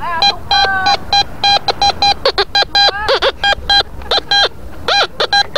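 Tianxun TX-850 metal detector beeping, many short identical tones a few times a second at an uneven pace as its coil passes over a metal target in the sand.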